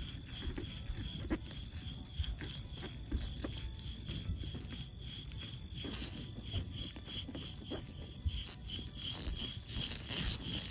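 Worn rear wheel bearing hub from a 2007 Honda CR-V turned by hand, giving faint, irregular grinding clicks: the sign of the failed bearing behind the wind-up noise. A steady high-pitched drone sits under it throughout.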